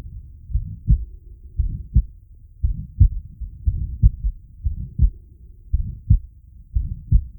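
Heart sounds of a patient with aortic stenosis, heard through a digital stethoscope: a regular beat about once a second. Each first heart sound runs straight into a systolic murmur before the second heart sound.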